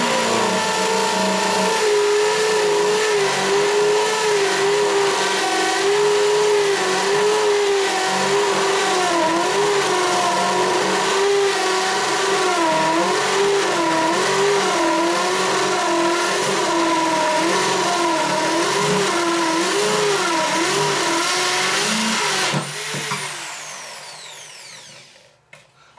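Corded electric drill boring a large hole through plywood. The motor's pitch keeps sagging and recovering as the big bit bites and loads it. Near the end the trigger is released and the motor winds down with a falling whine.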